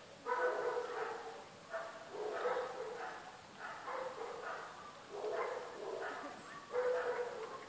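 A dog barking repeatedly, about one or two barks a second.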